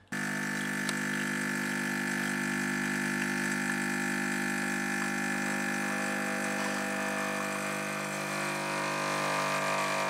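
A steady hum of several held tones that starts abruptly and holds unchanged.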